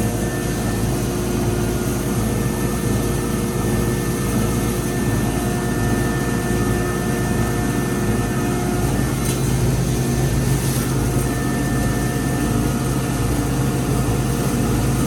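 Wire chopping line (shredder, granulator and C1 separator) running under load while processing tin-coated copper wire: a loud, steady machine drone with several constant hums.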